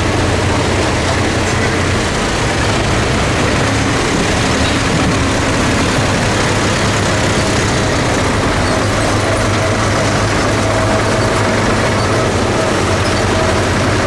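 Vintage tractor engines running steadily.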